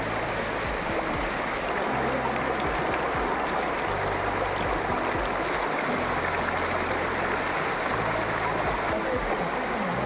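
Steady rush of flowing canal water, an even hiss-like noise that holds level throughout.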